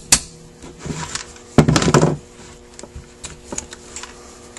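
Metal handling on a Rochester Quadrajet carburetor: a last sharp tap just as it starts, a loud scraping rattle about a second and a half in, then a few light clicks.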